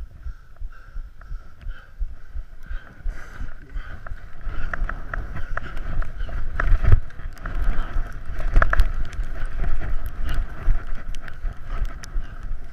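Skis running fast over groomed snow, with wind buffeting the body-worn camera's microphone. The rumble builds about 4 seconds in as speed picks up, with scattered sharp clicks and scrapes, and eases near the end.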